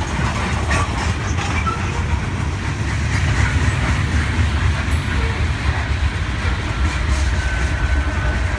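Freight train of coal hopper cars rolling past with a steady low rumble and some wheel clacking. Near the end a BNSF diesel locomotive in the train comes by, and a steady high tone is heard.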